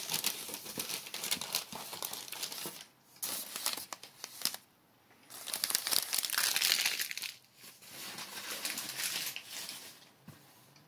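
Crumpled packing paper crinkling and rustling as it is handled and pulled aside, in four bouts with short pauses between them.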